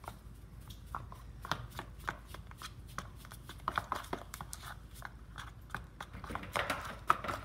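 Slime mixture of glue, shaving cream, soap and baby powder being mixed in a plastic bowl: irregular soft squishes and small clicks, busier near the end.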